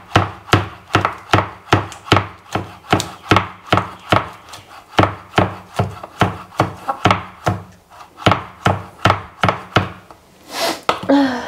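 A kitchen knife slicing spring onions on a wooden cutting board, the blade knocking on the board in an even rhythm of about three strokes a second. The chopping stops about ten seconds in, followed by a short breathy vocal sound.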